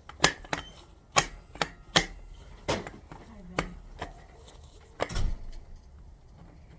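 Metal-on-metal strikes, about eight sharp knocks at uneven spacing, as a seized distributor is hammered loose from a Ford 351M engine block.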